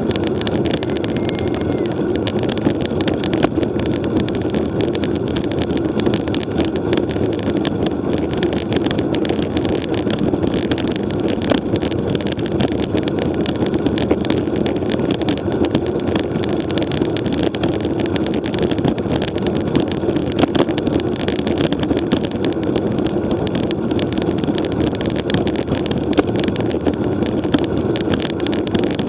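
Wind rushing over the microphone and a steady hum of tyres on the road during a road-bike ride, with frequent small clicks and rattles.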